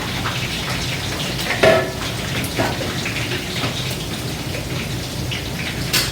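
Chicken frying in hot oil: a steady sizzle, with a couple of brief utensil knocks.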